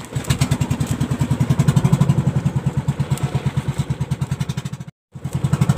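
Small outrigger boat's engine running with a fast, even chugging. It cuts out abruptly for a moment about five seconds in, then resumes.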